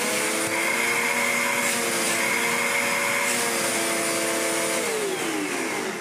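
750-watt Hoover Enigma upright vacuum cleaner's motor running up to speed, then holding a steady whine. About five seconds in it winds down, falling in pitch as it is switched off.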